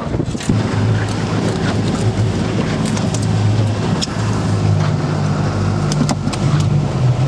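Outboard boat motor running steadily, its pitch stepping up slightly about halfway through, with a few sharp knocks.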